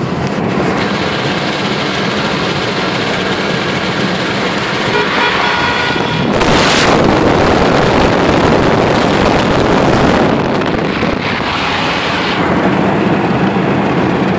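Steady road and engine noise inside a car cruising on a highway. A louder rush of wind noise comes in about six seconds in and drops back about four seconds later.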